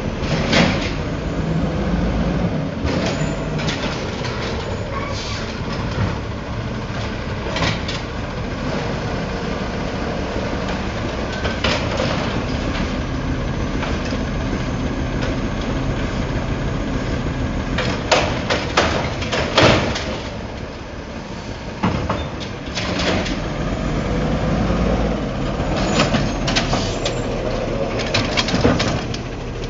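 Freightliner Condor refuse truck with an Amrep Octo automated side-loader: its engine runs steadily while the hydraulic arm grabs, lifts and dumps a trash cart and reaches for the next. Several sharp knocks and bangs of the cart and arm, a burst of them about two-thirds of the way through.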